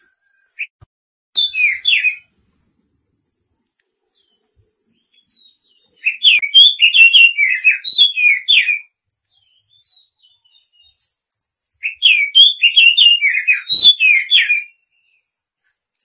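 Oriental magpie-robin singing: three phrases of quick, sliding whistled notes, a short one about a second in and two longer ones of about three seconds each, with pauses between.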